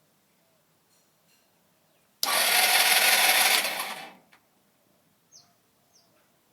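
SYM HD 200 scooter's electric starter cranking the engine for about two seconds, starting about two seconds in, without the engine catching: a no-start even though the battery, the new spark plug, the starter motor and the fuel supply check out fine.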